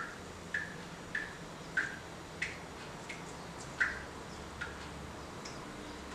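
A faint series of short, light ticks, about one every two-thirds of a second and spacing out toward the end, over a low steady room hum.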